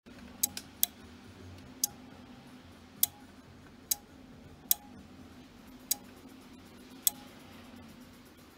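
An amplifier's relay clicking sharply at uneven intervals, roughly once a second, over a faint steady low hum.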